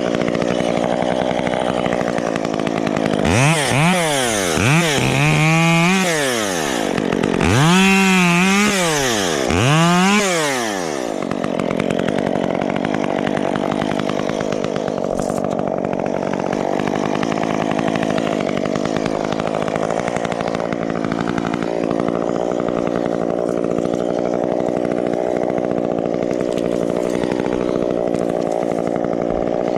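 Chainsaw revved up and back down about five times in quick succession, over a steady engine drone that carries on after the revving stops.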